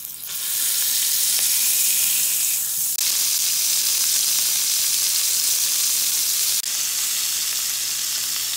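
Burger patty sizzling loudly on a hot griddle as it is pressed under a cast iron grill press: a steady frying hiss of spitting fat, dipping briefly twice.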